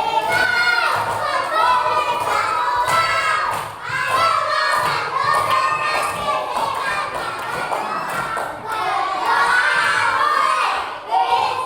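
Background music: a song with a high singing voice over a steady beat.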